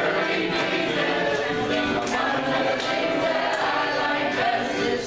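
Several voices singing a song together, with overlapping held notes.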